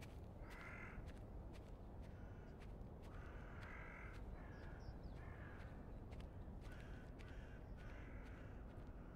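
Crows cawing faintly: a series of harsh caws, some in quick succession, over a low steady outdoor rumble.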